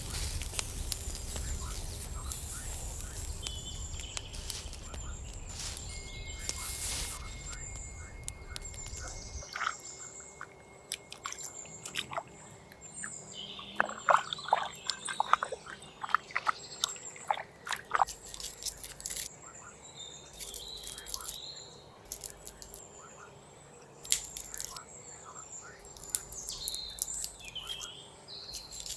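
Birds chirping, with scattered sharp clicks and knocks and a quick run of them about halfway through; a low rumble underlies the first third.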